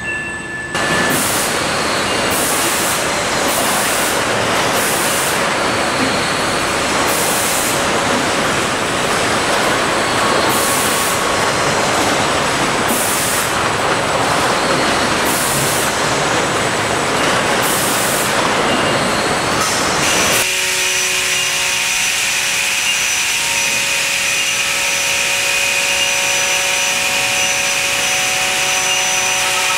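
Loud, steady industrial machinery noise in an automated warehouse, with short high hisses recurring every second or two. About two-thirds of the way through it changes abruptly to a steadier machine hum holding several constant tones.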